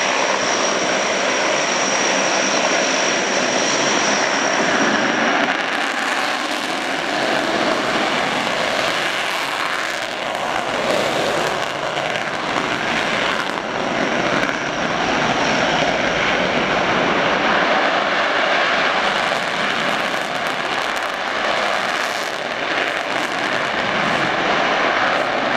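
Twin turbofan engines of an EA-18G Growler running on the runway: a steady rushing jet noise. A thin high whine rides over it for the first few seconds and again about fifteen seconds in.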